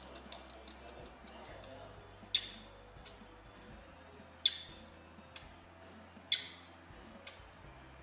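A lovebird and a girl kissing at her lips: a run of faint quick clicks, then four short, sharp, high-pitched smacks spaced about two seconds apart.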